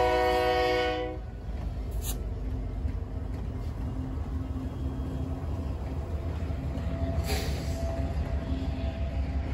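Union Pacific diesel freight locomotives passing close by: the locomotive's multi-note air horn chord cuts off about a second in, leaving the steady low rumble of the train rolling past.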